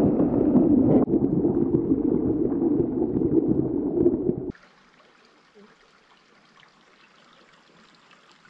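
Creek water heard underwater: a muffled, low rushing that stops suddenly about halfway through. It gives way to the faint trickle of a shallow creek.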